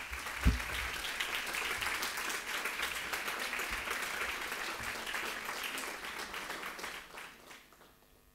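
Audience applauding, fading out near the end, with a single thump about half a second in.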